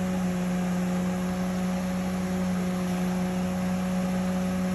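A steady, even hum at one constant pitch with fainter overtones above it, unchanging throughout.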